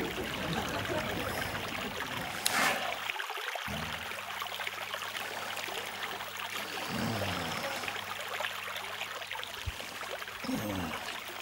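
Relaxation-sounds recording of a babbling stream, water trickling steadily.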